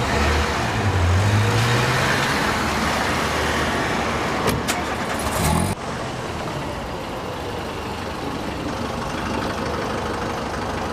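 A car engine accelerating as the car pulls away, its pitch rising over the first couple of seconds, with a few sharp clicks later. Then, from about halfway through, a quieter steady background hum.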